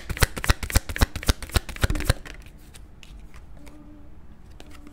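Deck of tarot cards being shuffled by hand: a rapid run of crisp card clicks, about ten a second, that stops about two seconds in.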